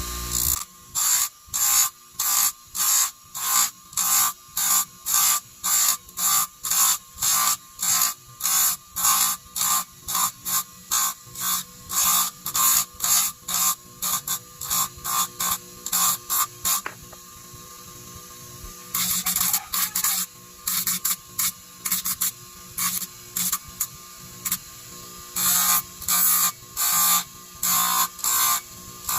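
Rhythmic back-and-forth hand sanding strokes on the old kettle's metal body, about two strokes a second, with a short pause about two-thirds of the way through.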